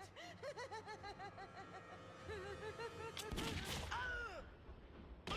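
A cartoon villain's rapid cackling laughter. About three seconds in a sudden loud bang cuts across it, followed by a short cry, and a second sharp crack comes near the end.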